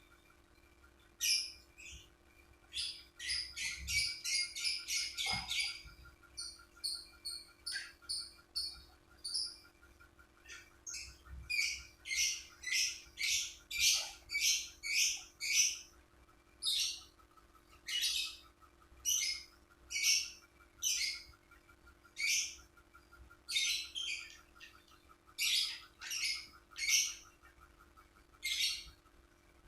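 Lovebird chirping: a long series of short, sharp high chirps, coming in quick runs of several a second and elsewhere spaced about a second apart. A steady faint hum runs underneath.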